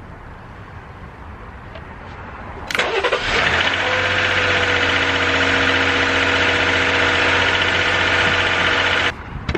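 Dodge Durango's engine cranking and catching about three seconds in, then idling steadily before stopping suddenly near the end.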